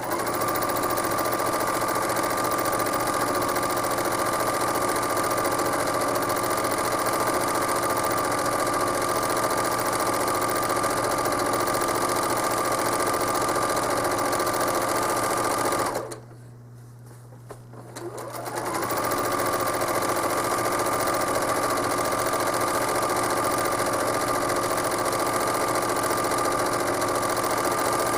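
Home sewing machine running steadily while free-motion quilting. It stops about sixteen seconds in, then starts again about two seconds later and speeds back up to the same steady running.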